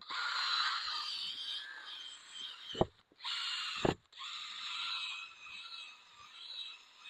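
Power polisher spinning a pad with rubbing compound against a plastic headlight lens, a steady whirring whine with a squeal. It cuts out briefly twice, about three and four seconds in, each stop marked by a sharp knock.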